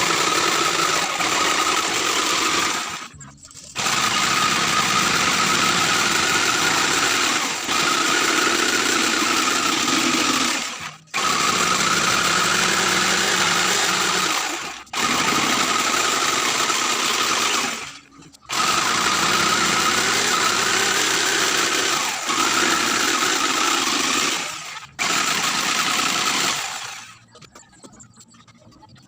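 Handheld electric power tool running in stretches of a few seconds, stopping briefly and starting again about five times, then stopping near the end.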